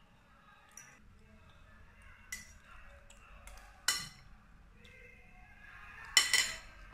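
Cutlery clinking against a bowl while eating: a few sharp clinks spread out, the loudest a quick cluster near the end.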